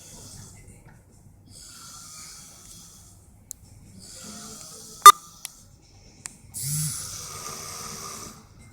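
A person snoring in slow, raspy breaths, about four in all, the last and loudest starting about six and a half seconds in with a low rattling buzz. A single sharp click just after five seconds in is the loudest sound.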